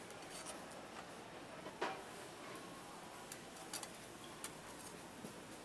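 Metal tongs and a spatula clicking and scraping on a flat-top griddle while tteokgalbi patties are handled: a few sharp clicks over a faint steady hiss, the loudest about two seconds in.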